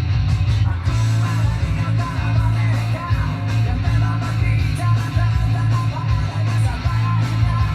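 Rock music with guitar, played back from a cassette on a Yamaha KX-390 stereo cassette deck.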